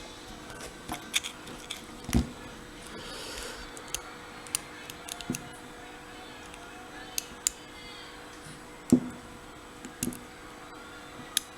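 Lock pick and tension wrench working the pin stack of a Matlock 3655 padlock, giving scattered small metallic clicks and taps as the pins are lifted and set under light tension. There are a couple of louder knocks, about two seconds in and again near nine seconds.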